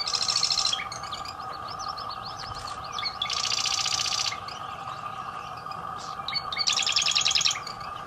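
Marsh wren singing: three songs, each a fast, buzzy, mechanical rattle lasting about a second, at the start, in the middle and near the end, with short scattered chirps between them. A steady high-pitched hum runs underneath.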